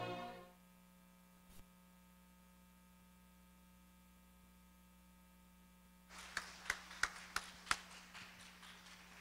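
Orchestral string music fading out in the first half second, then near silence, then a few people start clapping about six seconds in, sharp separate claps roughly three a second.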